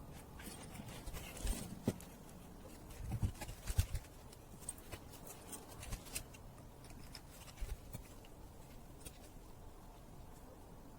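Scattered light clicks and knocks from handling tools and parts at a workbench, over a faint steady hiss, with small clusters of taps about two seconds in, around three to four seconds in, and past seven seconds.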